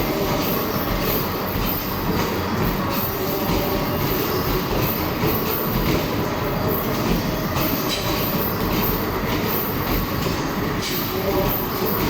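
Arcade basketball machine in rapid play: a continuous rolling rumble as balls run down the return ramp, with many small knocks of balls hitting the rim and backboard, over steady arcade din.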